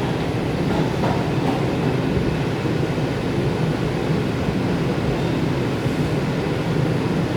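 R142 subway train running: a steady low rumble of wheels and motors, without rises or breaks.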